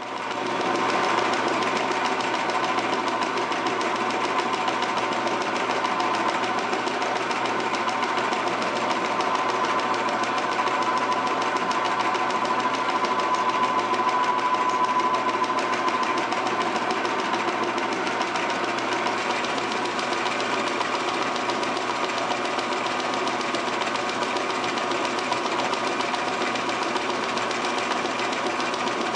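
Metal lathe running steadily while its cutting tool turns down a steel bar, throwing off chips: a continuous machine whir with a high, steady cutting tone over it.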